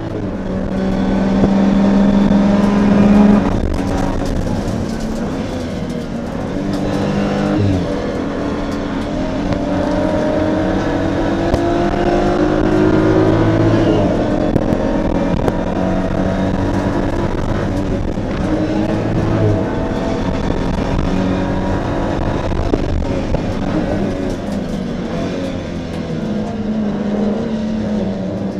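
Onboard sound from inside the cabin of a BMW M235iR race car, its 3.0-litre turbocharged straight-six at racing speed. The engine note climbs in pitch as it pulls hard, then drops sharply at a shift or lift, several times, over a steady rush of road and wind noise.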